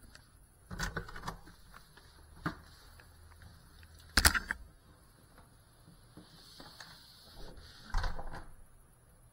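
A few scattered knocks and clicks over quiet room tone: a short cluster about a second in, a single knock, the loudest sharp knock about four seconds in, and another cluster near the end.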